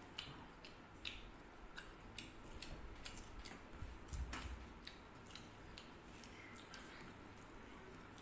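Faint sounds of eating rice by hand: irregular small clicks as fingers mix rice against the plates, with a soft low thump about four seconds in.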